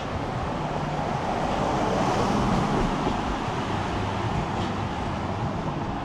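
Street traffic: a vehicle passing slowly, its engine hum and tyre noise swelling to a peak about two and a half seconds in, then easing off over a steady low hum.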